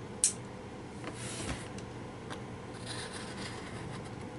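Packaging being handled and worked open. A sharp click comes about a quarter second in, followed by scattered rubbing and scraping.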